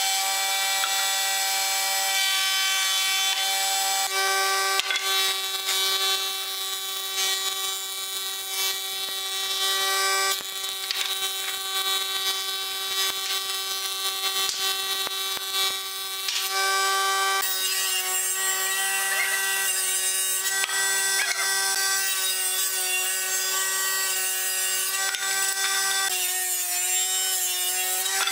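Old cast-iron combination machine's thickness planer running, its cutterhead whining at a steady pitch over the hiss of boards being planed and shavings cut. Near the end the pitch sags and wavers as the machine is loaded.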